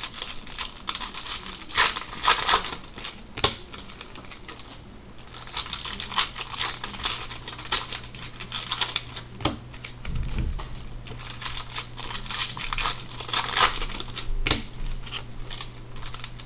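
Plastic foil wrapper of a Bowman Chrome baseball card pack crinkling as it is torn open and handled, in irregular bursts with a short lull about four to five seconds in.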